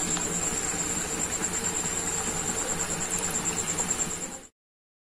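Rotane, pieces of whole-wheat jaggery dough, deep-frying in hot oil in a kadhai: a steady sizzle with fine crackling, and a thin, steady high-pitched whine over it. The sound cuts off abruptly near the end.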